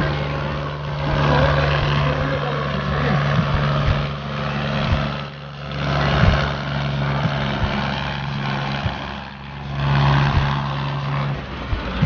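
Small electric motors and gearboxes of a wired toy tractor and toy combine harvester running under load, straining against each other on a tow chain, with a steady low hum and a few clicks. The hum cuts off near the end.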